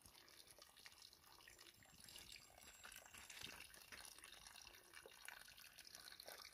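Faint trickle of spring water running and dripping from a pipe.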